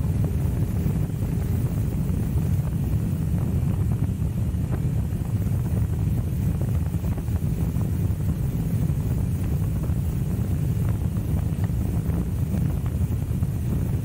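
Steady wind rumble on the microphone over the road and engine noise of a Royal Enfield Himalayan sidecar outfit on the move.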